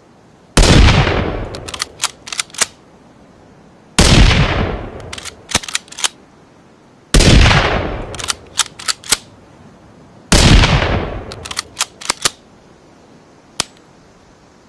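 Rifle shot sound effect, a blend of a Ruger American rifle and a rimfire rifle: four shots about three seconds apart, each ringing out for about a second and followed by a quick run of four or five sharp metallic clicks of the action being cycled. A single click follows near the end.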